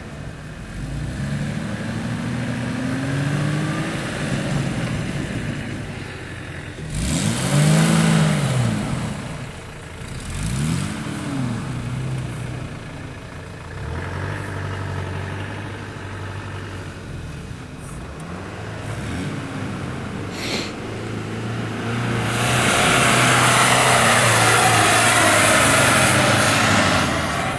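Off-road SUV engines, Toyota Land Cruiser 100-series, revving hard while climbing sandy slopes, the pitch swelling up and dropping back several times. Near the end comes a long, loud burst of hard running with a rushing noise over the engine.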